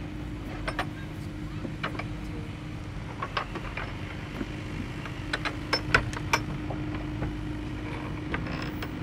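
Irregular sharp knocks and clicks, a dozen or so and unevenly spaced, over a steady low hum.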